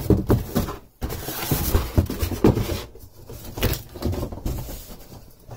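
Cardboard carton and moulded pulp packing scraping, rubbing and knocking as a boxed 3D printer is lifted out by hand. The handling is busiest in the first three seconds and quieter after that.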